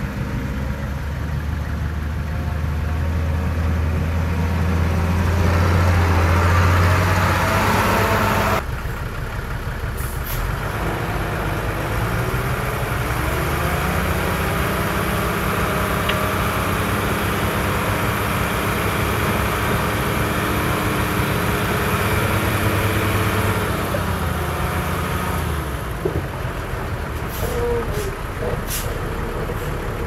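Heavy diesel engine of earthmoving machinery running hard. The sound changes abruptly about a third of the way through, then the engine revs up, holds high, and drops back near the end, with a few sharp clicks or knocks late on.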